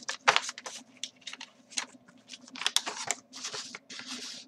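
Paper rustling in quick, irregular crinkles and scrapes as a folded letter and a white envelope are handled and slid into an orange paper mailer envelope.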